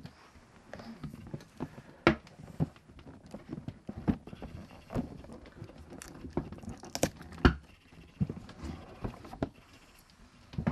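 Handling of a Crep Protect shoe-crate set and its box: irregular knocks, clicks and rustling as the panels and packaging are moved and set down. The loudest knock comes about seven and a half seconds in.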